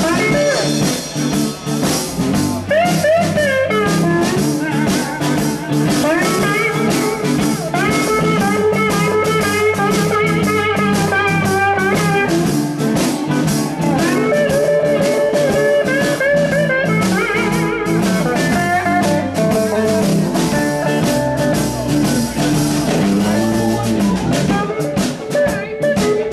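Live electric blues band playing an instrumental stretch: an electric guitar solo with bent, wavering notes over a drum kit and rhythm guitar.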